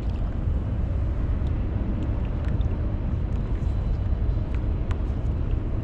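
Strong wind buffeting the microphone: a steady, loud low rumble, with a few faint clicks.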